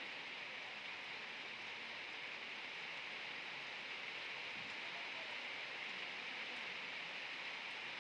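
Steady low hiss of background noise, even throughout with no distinct events.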